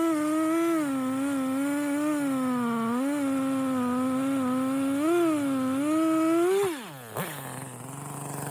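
Chainsaw running at full throttle through a cut, its high engine note wavering and dipping slightly under load. About seven seconds in, the throttle is released and the pitch drops quickly to a low idle.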